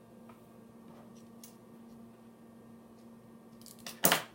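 Small knife parts and a small screwdriver being handled on a work surface: a few faint ticks over a low steady hum, then a short, loud clatter of sharp clicks near the end.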